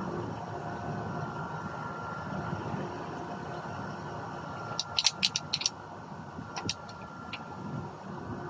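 Light metallic clicks and rattles from a pump-action shotgun being handled and wiped down with a rag: a quick run of about five clicks a little after halfway, then a few more single clicks, over a steady background hum.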